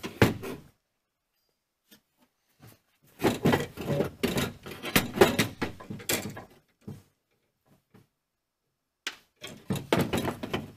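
Steel window regulator assembly knocking and rattling against the door's sheet metal as it is worked through the inner door access hole. The sound comes in three bursts of irregular clunks: briefly at the start, for about three seconds from a few seconds in, and again near the end.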